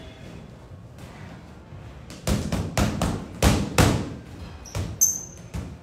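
Boxing gloves punching a freestanding heavy bag: a run of sharp thuds starting about two seconds in, several in quick pairs as combinations land, with a brief high squeak near the end.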